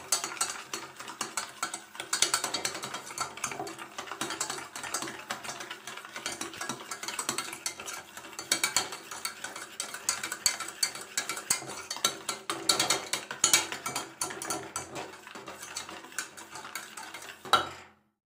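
Wire whisk beating a runny batter of yogurt, sugar and oil in a metal pot: rapid, continuous scraping and clicking of the wires against the pot. It ends with a louder clack near the end, then stops abruptly.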